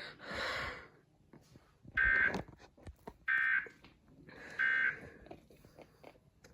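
Emergency Alert System end-of-message data bursts: three short, buzzy, warbling tone bursts about 1.3 seconds apart, signalling the end of a broadcast tornado warning. A brief hiss comes just before them.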